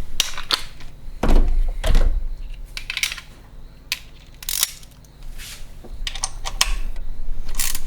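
Scattered clicks and knocks of hand tools and metal parts being handled, irregular, with short quiet gaps between them.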